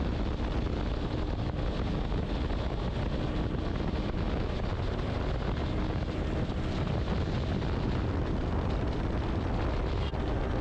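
Steady wind rush and road noise on a helmet-mounted action camera while riding a motorcycle.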